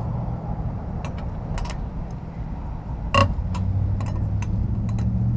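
A vehicle engine idles with a steady low hum, while metal tools or lug nuts clink now and then. One louder ringing metallic clank comes about three seconds in.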